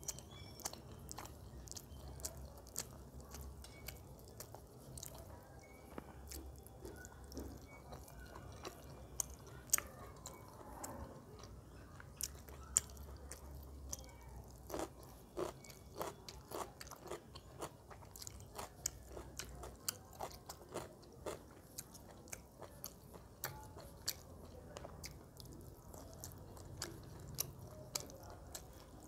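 Close-miked chewing and wet mouth sounds of someone eating rice and chicken curry by hand, with many small sharp clicks. About halfway through comes a run of crisp, regular crunches as a piece of raw cucumber is chewed.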